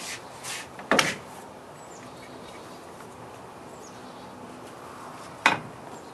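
Faint background with a few light bird chirps, broken by two short, sharp noises, one about a second in and one near the end.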